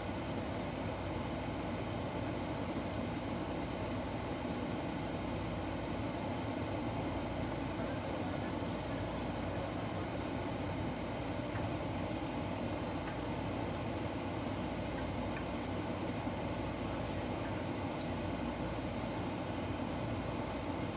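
Steady low rumbling background noise, unchanging throughout.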